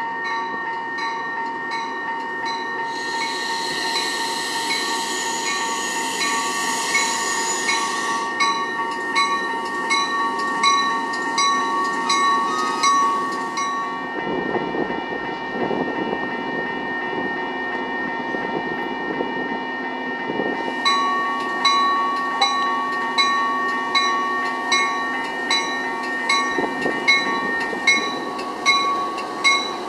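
Railroad grade-crossing warning bell ringing steadily, about two strikes a second, while a Metra bilevel commuter train rolls through on its rails. A hiss of several seconds comes a few seconds in.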